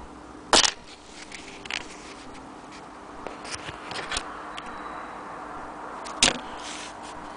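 Scattered light clicks and rustling as fabric is handled at an antique Jones hand-crank sewing machine, with two sharper clicks, one about half a second in and one near the end. A faint steady hum runs underneath.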